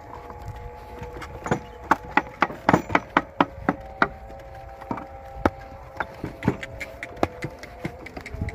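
Wooden donkey cart rattling and knocking as it rolls along a rutted dirt track, sharp irregular knocks that come thickest in the first few seconds, with a steady whine underneath.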